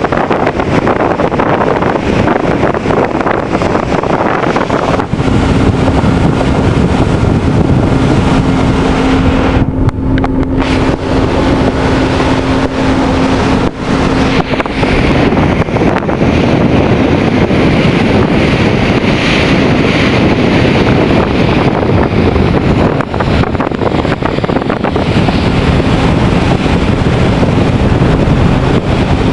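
Wind buffeting the microphone aboard a cross-Channel ferry under way, over the steady noise of the ship's engines and the sea. A steady low hum comes in for several seconds around the middle and again near the end.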